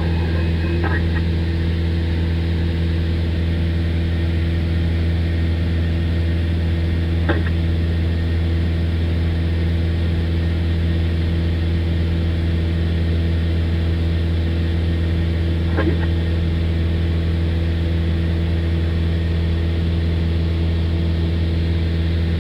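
Aircraft engine drone heard inside the cabin during cruise, steady and loud, with two brief clicks partway through.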